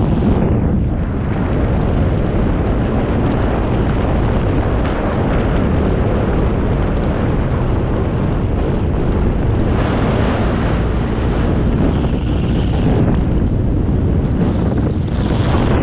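Heavy wind rushing over the microphone of a camera carried along on a moving ride. It is a steady, loud rumble with no clear engine note or other distinct event standing out.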